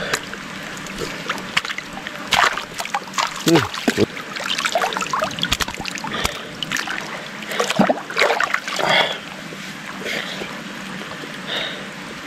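Water splashing and dribbling around a person wading chest-deep in a muddy pond, in irregular small splashes and drips as caught prawns are lifted out of the water.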